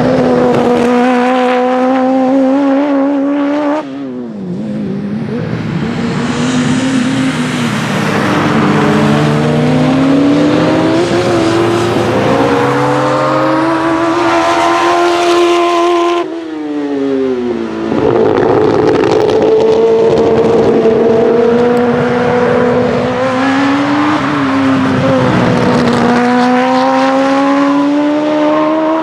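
Honda CBR1100XX inline-four motorcycle engine in a lightweight Fiat 126-bodied prototype, driven hard, its pitch climbing and falling repeatedly as it accelerates and shifts through the bike gearbox. The sound breaks off and changes abruptly about four and sixteen seconds in.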